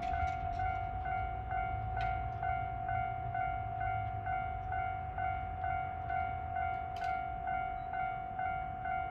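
Japanese railway level-crossing warning bell ringing in a steady, even rhythm of a few strokes a second. Under it is the low rumble of a train at the crossing, strongest in the first half, with two sharp clicks about 2 and 7 seconds in.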